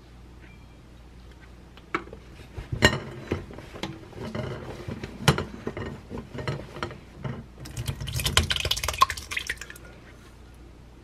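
Kitchen handling sounds: a stainless steel pot and spatula knocking and clinking while a cotton cloth rustles. Later comes a denser stretch of wet, splashy noise as thick homemade yogurt is poured from the pot into a cloth-lined strainer, to be strained into Greek yogurt.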